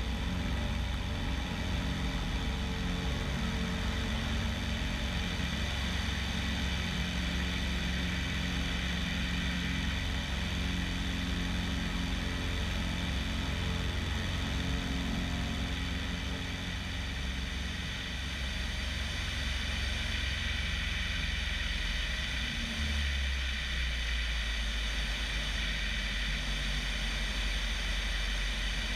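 Bellanca Decathlon's 150 hp four-cylinder Lycoming engine and constant-speed propeller running at climb power through a go-around, heard from outside the cabin with heavy wind rush over the microphone. The low engine note shifts about three-quarters of the way through.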